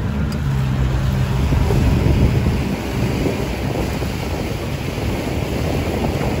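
Wind buffeting the microphone over choppy water, with a low steady hum in the first couple of seconds.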